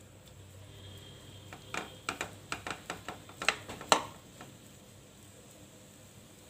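A steel spoon knocking and scraping against a non-stick frying pan as mashed boiled potato is pressed and stirred in it: a quick run of light clicks over about three seconds, the loudest two a little after the middle.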